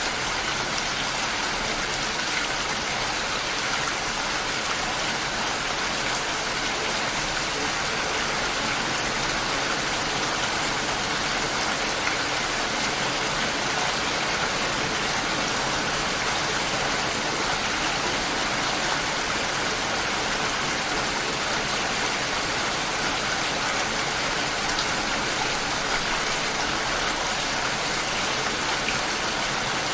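Steady light rain: an even hiss of many raindrops falling.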